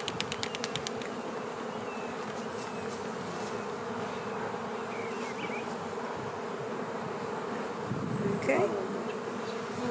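Honey bees humming steadily from an opened hive, the massed buzz of many bees. A quick run of even ticks sounds in the first half second.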